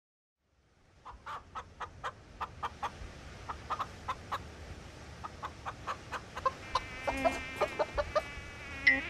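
A hen clucking in short, irregular clucks over a faint low background hum, starting about a second in. Higher, wavering calls join in over the last couple of seconds.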